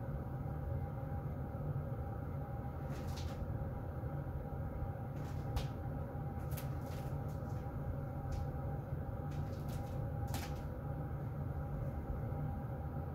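Heater vent blowing steadily: a low rumble of moving air with a faint steady hum, broken by several faint ticks.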